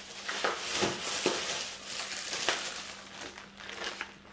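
Plastic-wrapped packets of diced ham crinkling and rustling as they are handled, with a few sharper clicks.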